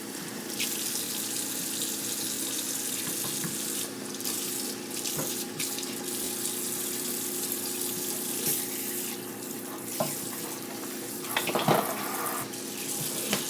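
Kitchen faucet running steadily into the sink while hands are washed with soap. A short, louder sound stands out near the end.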